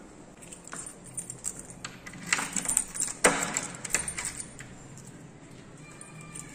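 A bunch of keys jangling and a key working in a door lock: a run of metallic clicks and rattles, the loudest click about three seconds in.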